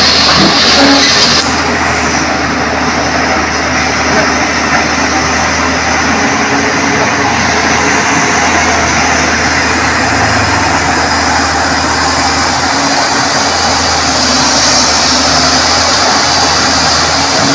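Steady street traffic: vehicle engines running and passing.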